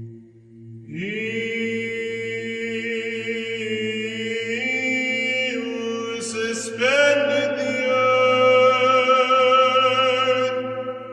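Background music: slow chant of long held sung notes over a steady low drone, the melody moving to a new note a few times and swelling louder about two-thirds of the way through.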